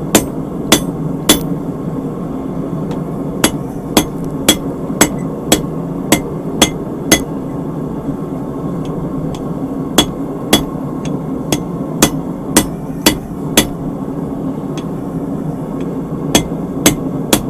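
Hand hammer striking a hot 3/8-inch round steel bar laid over a hardy (hot cut) in the anvil, cutting the piece off the bar. The sharp blows come about two a second in short runs, with pauses of a couple of seconds between runs.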